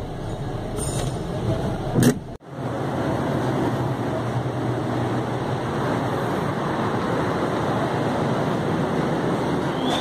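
Steady road traffic noise, with a sharp knock about two seconds in, after which the sound briefly drops out and comes back.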